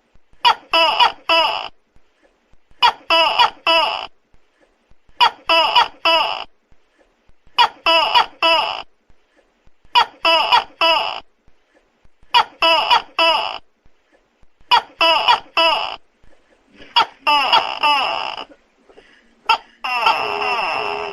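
Tokay gecko calling: short pitched calls in groups of about three, repeating roughly every two seconds, then a longer, denser call near the end.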